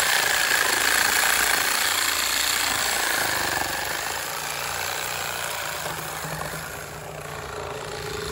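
Cordless reciprocating saw cutting through an old weathered wooden post with a steady, rough buzzing. It gets somewhat quieter in the second half, dipping briefly shortly before the end.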